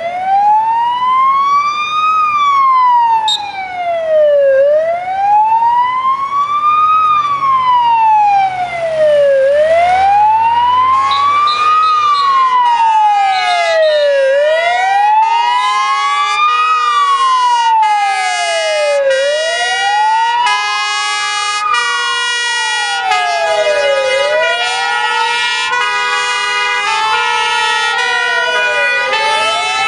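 Fire service vehicle sirens: a slow wail rising and falling about every five seconds. About ten seconds in, several two-tone horns join it, all sounding at once and out of step with each other.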